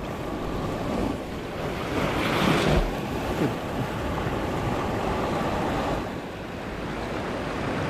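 Surf washing over and around shoreline rocks, with wind buffeting the microphone; a wave surges louder about two to three seconds in.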